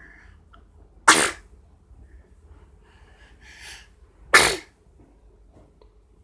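A young girl sneezing twice, about three seconds apart. Each sneeze is a short, loud burst, and a quick breath in comes just before the second.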